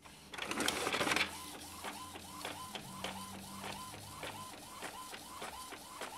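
Epson L395 inkjet printer starting a print job: a louder rush in the first second as the sheet is drawn in, then the print-head carriage moving back and forth in an even rhythm of about two or three strokes a second. It runs without noise or jamming, its carriage fault repaired.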